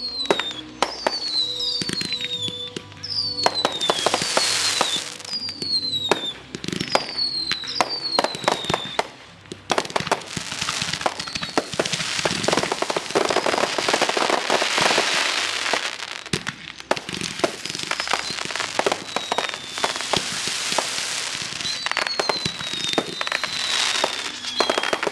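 Fireworks going off: a run of whistling fireworks, each a whistle falling in pitch, among sharp bangs. From about ten seconds in, a dense crackling fills several seconds, then more whistles and bangs come near the end.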